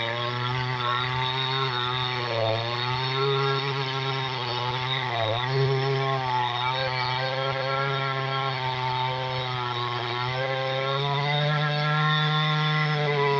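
Two-stroke chainsaw running hard while cutting into a large tree, its engine note dipping briefly twice, about two and a half and five seconds in, as the chain bites into the wood.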